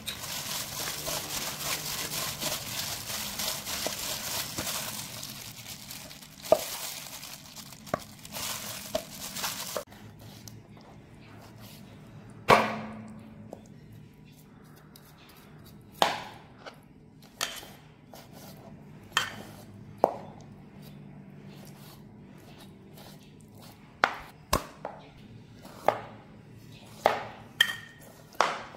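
A plastic-gloved hand mixes marinated chicken pieces in a metal bowl, a dense crinkling and squishing for about the first ten seconds. After that a knife chops raw chicken thighs on a cutting board, about a dozen sharp chops at irregular intervals, closer together near the end.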